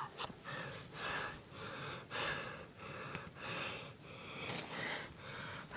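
A person breathing quickly and heavily close to the microphone, in short even breaths a little under two a second.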